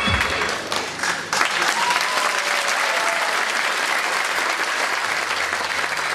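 Audience applauding steadily, starting just as the backing music ends.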